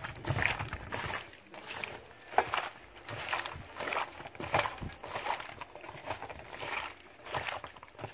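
Gloved hand squishing and turning raw chicken pieces with chopped onion, tomato and seasonings in a stainless steel bowl: wet squelching and rustling in irregular strokes, with one sharper click about two and a half seconds in.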